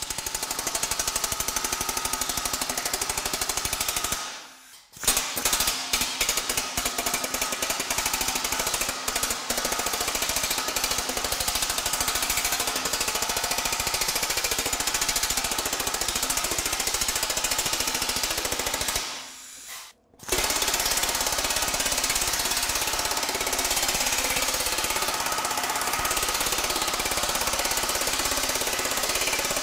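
TM Technologies pneumatic power hammer rapidly pounding 1/8-inch 3003 aluminum sheet between its shrinking dies, a fast, continuous hammering as the metal is shrunk. It breaks off briefly twice, about four seconds in and again after about nineteen seconds.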